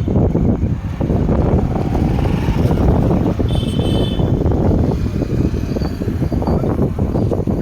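Diesel engine of a JCB 3DX backhoe loader running loud, with a rough, uneven low rumble.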